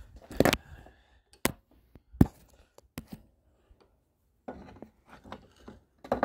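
Old water pump being handled and clamped into a bench vise: several separate sharp metal knocks, the loudest about two seconds in, then a busier run of clanks and clatter from about four and a half seconds on.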